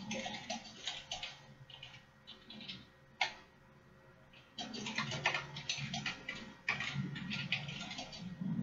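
Typing on a computer keyboard: quick runs of keystrokes, a lull about two seconds in broken by one sharper click, then fast typing again.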